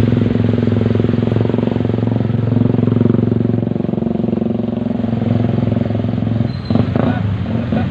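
Motorcycle engine running steadily, with a brief dip and wobble in its sound near the end.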